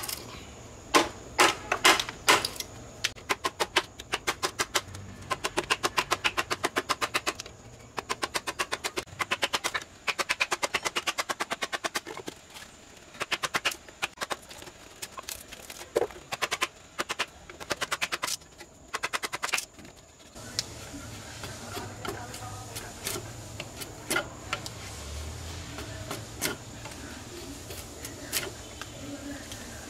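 Hammer driving a steel chisel into wood clamped in a vise: runs of rapid, sharp blows, broken by short pauses. The blows stop about two-thirds of the way through, and then come quieter, scattered cuts as a blade shaves the wood.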